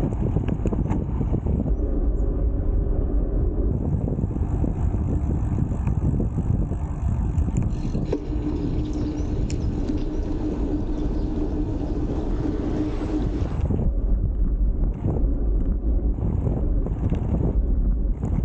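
Wind buffeting the microphone on a moving road bike, a dense steady rumble. A steady hum joins it for about five seconds midway.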